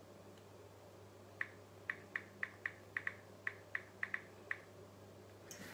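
Smartphone keyboard clicks as a touchscreen phone is typed on: about a dozen short, light ticks in quick, uneven succession, starting about a second and a half in.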